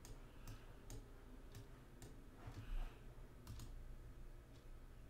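Faint computer mouse clicks, about seven at irregular intervals.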